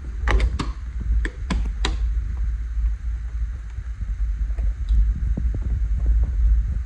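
A balcony door being shut and its lever handle worked: the latch and lock click and clatter several times in the first two seconds. Lighter ticks follow over a steady low rumble.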